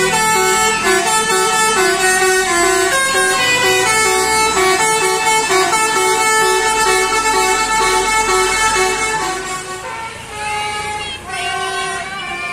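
A bus's Basuri telolet multi-tone air horn playing a tune: quick repeated notes at first, then longer held notes, turning softer about ten seconds in.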